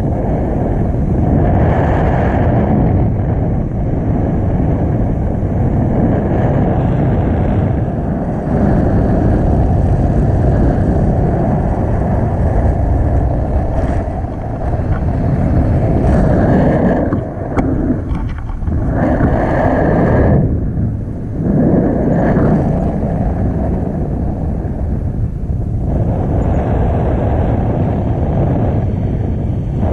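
Wind buffeting the camera's microphone in paragliding flight: a loud, steady rushing that dips briefly a couple of times past the middle.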